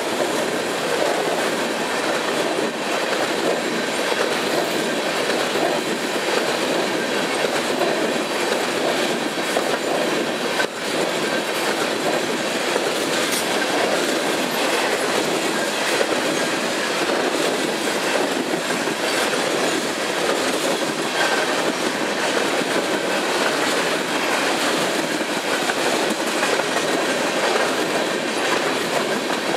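Freight train of covered hopper cars and tank cars rolling steadily past: the continuous rumble and clatter of steel wheels on the rails.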